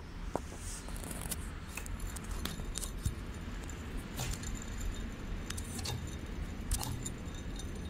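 Air-conditioning compressor pulley on an Audi A6 C5 2.8 V6, spun by hand with the belt slack, giving a steady rough grinding with scattered light metallic clicks. The mechanic suspects a failing pulley bearing.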